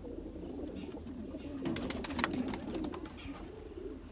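Several domestic pigeons cooing in a loft, their low warbling calls overlapping. A burst of rapid clicks comes about halfway through.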